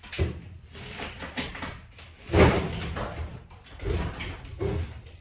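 Irregular knocks, bumps and rustling, with one heavy thump about halfway through and more knocks after it.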